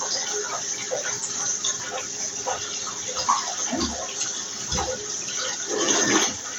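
Water running from a tap into a bath: a steady rush, with two short low thuds in the middle.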